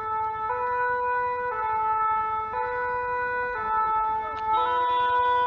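French two-tone emergency siren ("deux-tons") of a Paris Fire Brigade VSAV rescue ambulance, heard close up and alternating between a high and a low note about once a second: the vehicle is on an emergency run.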